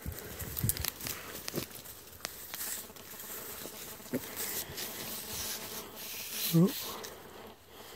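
Footsteps and brushing through dry leaf litter and twiggy undergrowth, with many small crackles and rustles. About six and a half seconds in, a short pitched sound rises and falls briefly and is the loudest thing heard.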